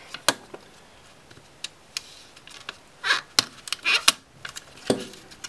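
Folding knife cutting and scraping at cardboard packaging: irregular sharp clicks and short scrapes, busiest about three to four seconds in.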